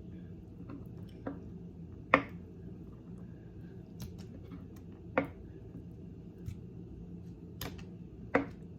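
Kitchen knife cutting through firm tofu and knocking on the cutting board, a sharp tap every second or so, the loudest about two seconds in.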